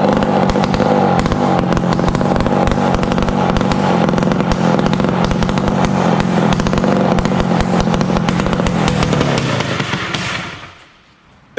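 Two-stroke motorcycle engine running loud and steady through a makeshift exhaust pieced together from scrap pipes, then dying out near the end. The crew wonders whether it stalled or the exhaust is choked.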